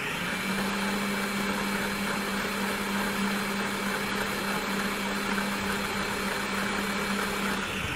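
Electric stand mixer running steadily at speed, its motor giving a constant hum with a whirring beater in the steel bowl; it begins to wind down at the very end.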